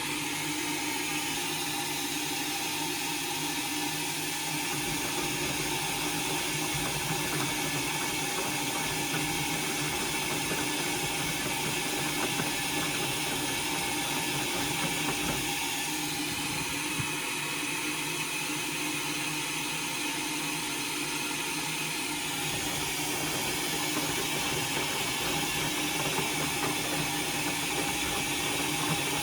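Indesit washing machine running through its Express wash cycle: a steady mechanical hum with rushing water, the sound shifting slightly about halfway through and again a little later.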